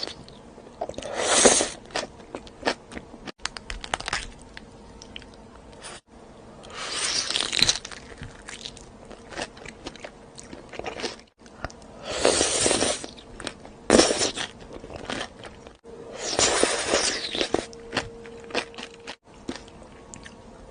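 Close-up crunchy chewing and biting of food, in about five loud bursts a few seconds apart, with a faint steady hum underneath.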